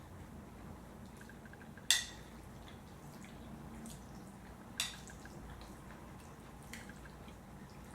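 Quiet eating sounds: faint wet mouth noises and small ticks, with two sharp clicks about three seconds apart.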